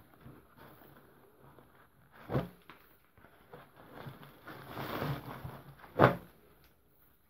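Dirty denim jeans and plastic rubbish bags being handled in a plastic wheelie bin: rustling, louder around five seconds in, with two short knocks, the second and loudest about six seconds in.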